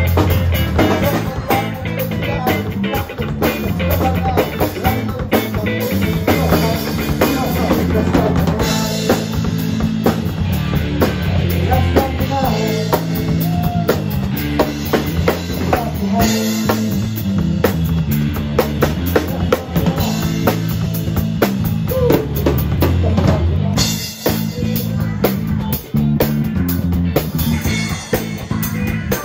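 Live band playing amplified music: drums keep a steady beat under a five-string electric bass line.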